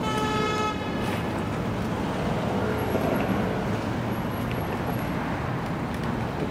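Steady street traffic noise, opened by a single short horn toot lasting under a second.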